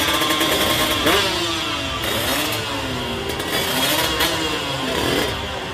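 Drag-racing motorcycle engines revving at the start line, the pitch climbing and dropping again and again, with a sharp climb about a second in.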